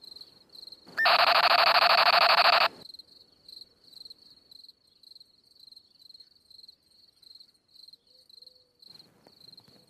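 Crickets chirping steadily, about two pulses a second. About a second in, a loud, harsh, steady sound cuts in and stops abruptly after about a second and a half.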